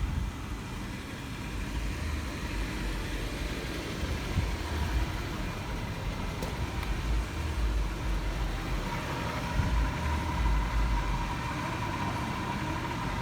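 A car engine running with a steady low rumble, with a faint steady whine joining about nine seconds in.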